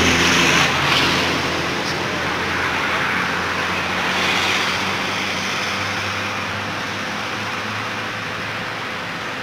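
A motor vehicle passing on the road, loudest in the first second and then slowly fading away, over a steady traffic hum.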